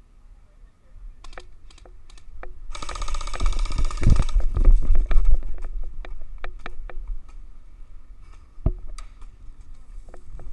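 Airsoft guns firing: scattered single sharp clicking shots, with a rapid full-auto burst lasting about a second and a half, starting a little under three seconds in.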